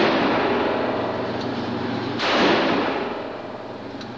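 A handgun shot about two seconds in, with a trailing echo from the indoor range; the end of the previous shot rings out at the very start.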